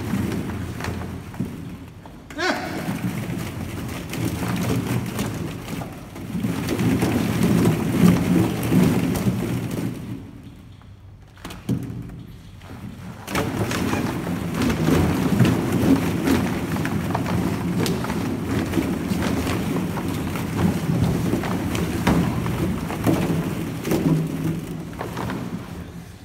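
Many hollow plastic ball-pit balls clattering and rustling against each other as children move and dig through them, with a quieter spell about ten seconds in before the clatter picks up again.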